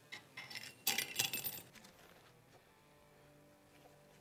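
A metal washer dropped into a WP AER 48 fork tube, clinking and rattling down inside the tube as it lands at the bottom, about a second in, after a few light clicks.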